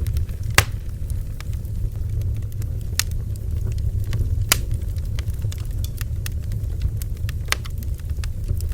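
Bonfire burning: a steady low rumble of flames with scattered sharp crackles and pops, the loudest pop about half a second in.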